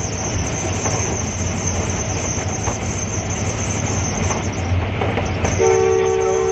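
ZCU-30 diesel-electric locomotive running at speed, heard from its cab: a steady rumble of engine and wheels on the rails. About five and a half seconds in, the locomotive's horn starts sounding, a steady multi-note chord.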